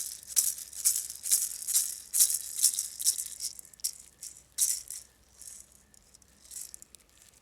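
Hand rattle shaken in a steady rhythm of about two shakes a second. It slows and fades to a few scattered, quieter shakes over the last couple of seconds.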